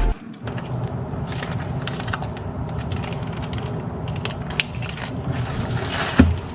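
Album packaging being handled and opened, crinkling and crackling, with scattered small clicks and a sharper knock about six seconds in.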